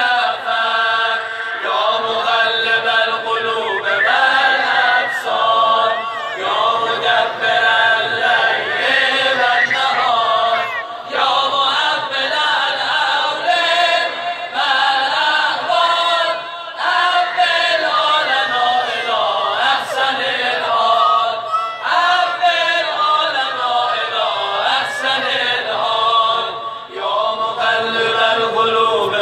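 Religious chanting sung through loudspeakers: melodic singing in long phrases with short breaks.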